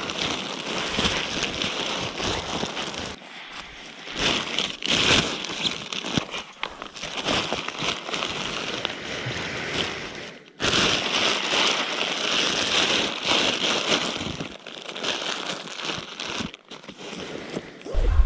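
Thin plastic pack liner rustling and crinkling as stuffed sacks of gear are pushed down into it by hand, in uneven handfuls with short pauses.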